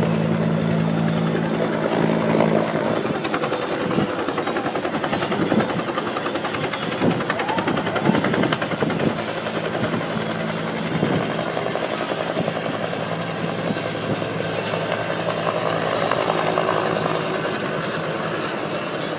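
Helicopter running close by, its rotor beating steadily over a steady engine drone that eases after a couple of seconds and strengthens again midway.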